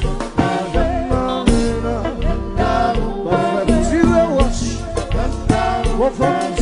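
Live Haitian kompa band playing: a man singing lead into the microphone over drum kit, bass and percussion keeping a steady dance beat.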